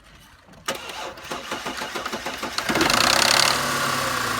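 Audi A6 C6 3.2 V6 (AUK engine) being started: the starter cranks for about two seconds with a rapid, even knocking, then the engine catches and flares up loudly before settling toward idle. It is the start-up timing-chain rattle this car is diagnosed with.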